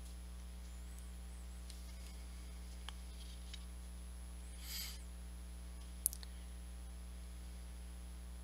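Steady low electrical hum, with a soft brief noise about five seconds in and a single sharp click a little after six seconds.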